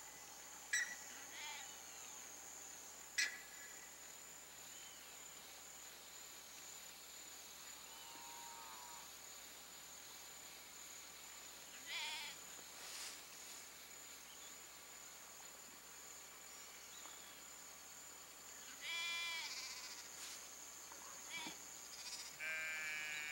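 Sheep in a grazing flock bleating several times, the calls growing louder later on. A steady high-pitched whine runs underneath, and two sharp clicks come in the first few seconds.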